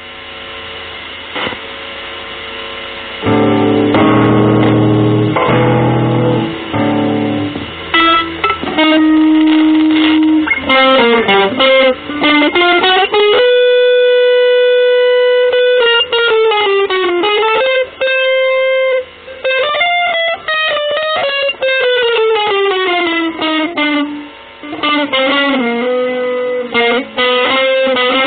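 Electric guitar playing: a few loud low chords about three seconds in, then fast single-note runs rising and falling, with one long held note about halfway through.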